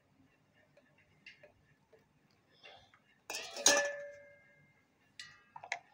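Kitchenware clinking on a tea counter: a sharp knock about three seconds in that rings on for about a second, then a few lighter clinks near the end.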